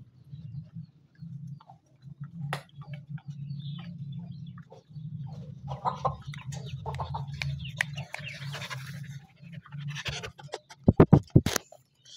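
A small white spitz-type dog panting, with scattered clicks and rustles over a steady low hum. Three or four loud knocks come close together near the end.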